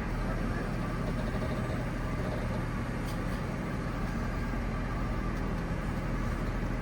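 Steady low drone of a Monaco Windsor diesel pusher motorhome's engine and road noise, heard from inside the cab as it drives through the RV park.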